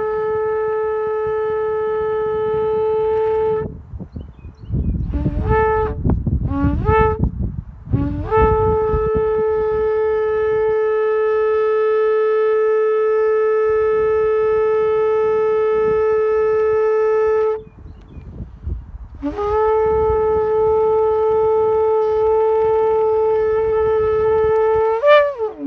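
A long spiralled Yemenite shofar blown in a series of calls: a long steady blast, three short blasts, a very long held blast of about nine seconds, then a final long blast that rises in pitch at its end.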